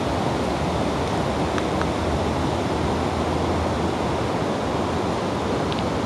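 Steady rush of water pouring over a low waterfall that runs across the width of the river.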